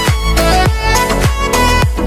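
Background music: an electronic dance track with a steady kick-drum beat about every half second and a sliding melody over it.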